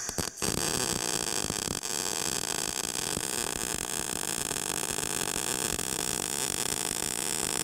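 MIG welding arc running on steel, throwing sparks: a couple of brief stuttering strikes at the start, then a steady, continuous arc noise as the bead is laid.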